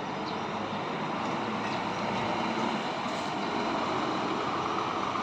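Bus engine running as a bus moves through the terminal, mixed with general traffic noise. It is steady and grows a little louder about two seconds in.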